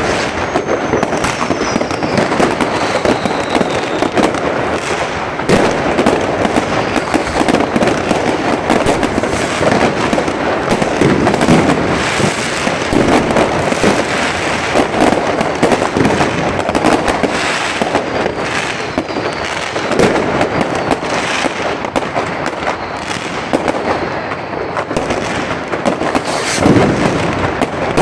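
Dense fireworks and firecrackers going off on all sides: a continuous barrage of bangs, pops and crackling, with a couple of whistling rockets, near the start and again about two-thirds of the way through.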